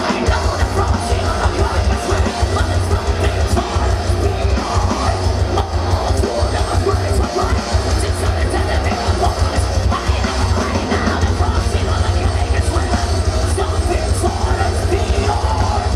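Heavy metal band playing live and loud, with a pounding, fast-pulsing bass and drum low end dominating and screamed vocals over the guitars.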